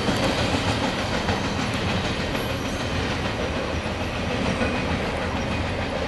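Freight train passing at speed close by, a steady loud rumble of wheels on rail that eases slightly toward the end.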